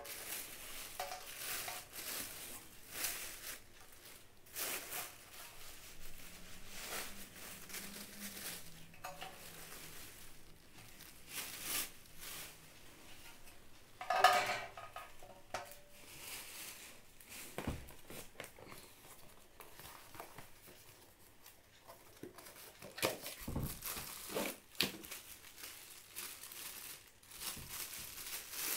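Rustling and crinkling of wrapping as German silver puja trays are unwrapped and handled, with the metal trays clinking now and then. The loudest is a sharp ringing clink of a tray about 14 seconds in.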